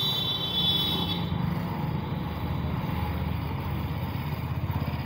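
Motor vehicle running along a road, heard from aboard it: a steady low engine rumble with road noise, and a thin high whine that fades out about a second in.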